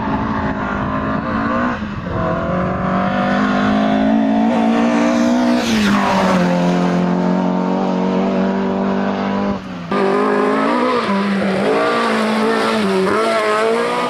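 Ford Escort Mk1 rally cars' four-cylinder engines running at high revs on full throttle, in several cut-together passes. About six seconds in the engine note falls sharply as one car goes by; the sound jumps abruptly about two and ten seconds in, and near the end the pitch rises and dips with the throttle.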